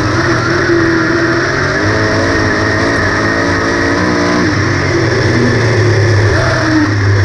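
Engine of a 358 modified race car, the small-block V8 that gives the class its name, heard from on board, running hard. Its note rises and falls through the middle as the throttle comes on and off.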